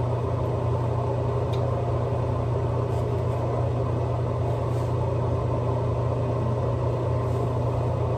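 Steady low mechanical hum with a faint hiss above it.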